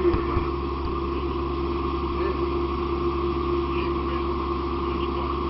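Fire engine's diesel engine and pump running steadily, a constant low drone with a steady hum over it. A couple of knocks just at the start.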